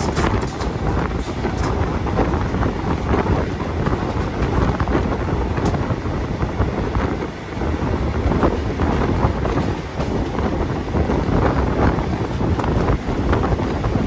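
A train under way behind ALCo WDG3A diesel locomotives, heard as a steady low rumble of engines and wheels under heavy wind buffeting on the microphone. There are a few sharp ticks in the first two seconds and one about six seconds in.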